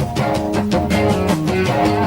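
Rock band playing an instrumental passage: electric guitar with bass guitar and a drum kit keeping a steady beat.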